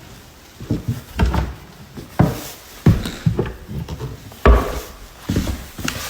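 A series of about ten irregular knocks and thumps, the loudest about four and a half seconds in.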